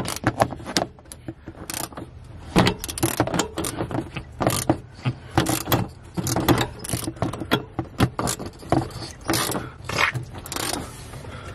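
A ratchet and socket clicking and scraping as a truck engine is turned over by hand from the alternator pulley nut, with irregular metallic clicks and rattles. The spark plugs are out and the engine is being turned to push water out of the cylinders and check that it spins all the way round without a bent rod.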